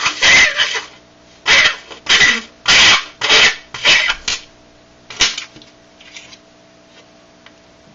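Metal coin on dry ice buzzing in about seven short bursts that die away, as the coin vibrates against the dry ice while carbon dioxide gas escapes from under it.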